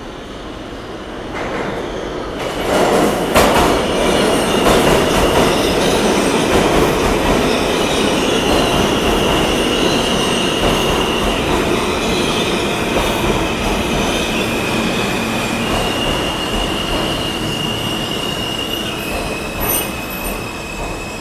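A passenger train running close by on the rails, its rumble swelling about two seconds in, with a few sharp wheel clicks. From about eight seconds on, a steady high wheel squeal comes and goes, stepping between a couple of pitches.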